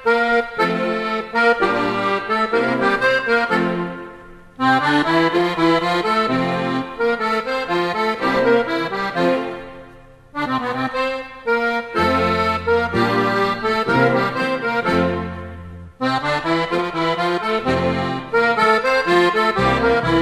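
Accordion music in a traditional folk style: a melody over low bass notes, played in phrases that fade out and start again about every six seconds.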